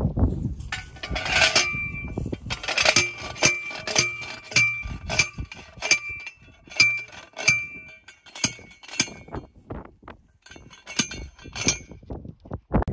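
Manual T-post driver slamming down repeatedly onto a steel T-post, each blow a sharp metallic clank with a ringing note, at roughly two blows a second, with a pause shortly before the last few strikes.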